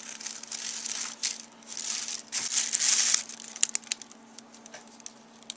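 Plastic carrier bag rustling and a foil takeaway tray crinkling as its crimped cardboard lid is prised off, in two stretches over the first three seconds, then a few light clicks and quieter handling.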